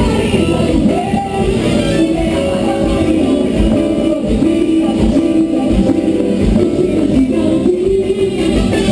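Live carnival band playing loudly, with singing, tambourine and a steady drum beat.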